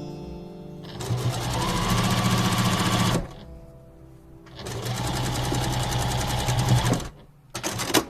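Electric sewing machine stitching in two runs of about two seconds each, picking up speed as each run starts, with a pause between. A few sharp clicks come near the end.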